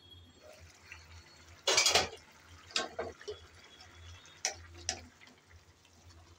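A glass pan lid lifted off with a clatter about two seconds in, then a spatula knocking and scraping a few times in a pan of simmering curry.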